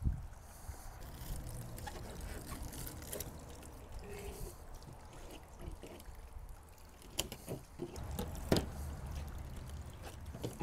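Knife skinning a raw halibut fillet: soft, wet squelching and scraping as the blade is worked between skin and flesh. There is a thump at the very start and a few sharp knocks near the end.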